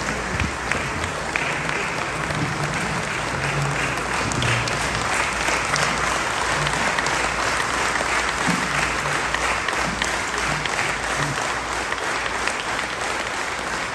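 Audience applauding: steady clapping from many people.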